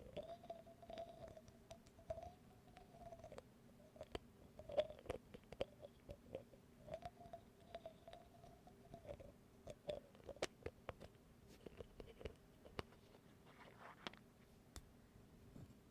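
Faint, irregular tapping and clicking close to the microphone: small objects being tapped and handled, with many quick light taps scattered throughout.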